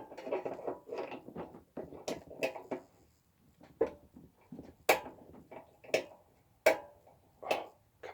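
Sharp clicks at irregular intervals, about eight of them, with softer handling and rustling between them in the first few seconds. Each click is a failed attempt of the tool to catch.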